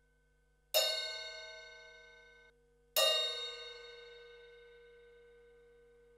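Ufip Tiger Series 14-inch hi-hat cymbals struck twice with a Vic Firth 5B wooden drumstick, about two seconds apart. The first ring cuts off abruptly after nearly two seconds; the second rings on and slowly fades.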